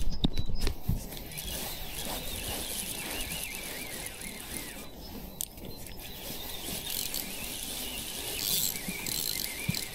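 Fishing reel being wound in while a hooked fish is played, over a steady background hiss.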